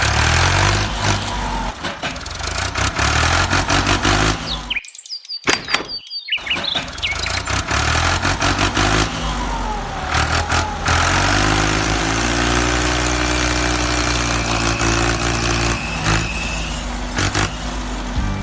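Tractor engine running, its pitch stepping up and down as it revs and changes speed, with two brief cuts to near silence about five and six seconds in.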